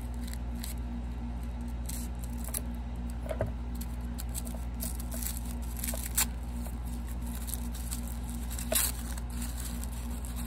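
Small hand-wrapped crystals being unwrapped: scattered rustling, crinkling and tearing of the wrapping, with louder crinkles about six and nine seconds in, over a steady low hum.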